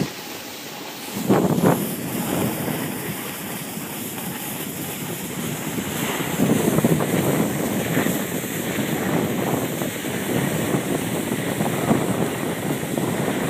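Wind rushing over the microphone and the hiss of snow scraping underfoot while gliding down a groomed ski slope. It is steady, with a sharp loud swell about a second and a half in.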